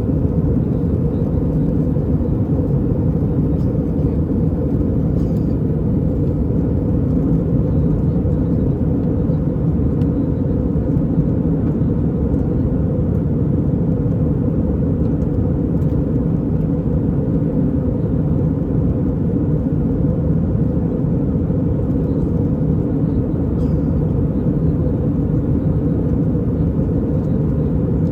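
Airbus A320 cabin noise heard from inside: a steady, unbroken rumble of the engines and airflow, with no change in pitch or level.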